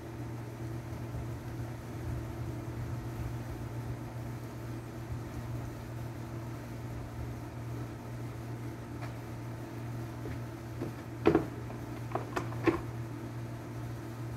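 A steady mechanical hum, with a few short knocks and clatters about eleven to thirteen seconds in.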